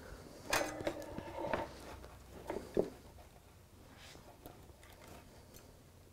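Faint handling noises as a soldering iron and its cable are picked up and moved: a few light knocks, clicks and rustles in the first three seconds, then almost quiet.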